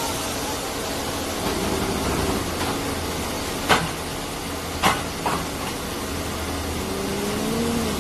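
Knuckle-crane recycling truck's engine running steadily at idle. Three sharp knocks come through it midway, one and then two close together about a second later, and a short rising-then-falling whine sounds near the end.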